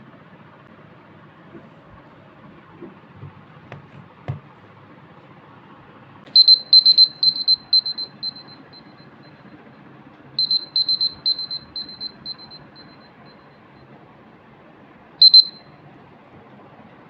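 Smartphone timer alarm going off when the countdown has run out: two runs of rapid high-pitched beeps, each starting loud and fading away, then one short beep.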